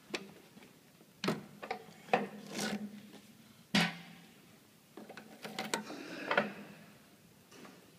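Irregular knocks, clicks and short scrapes from hands working the parts of a PP string wound filter cartridge machine and a freshly wound cartridge on its spindle. The loudest knock comes a little before the middle, and a cluster of clatter follows later on.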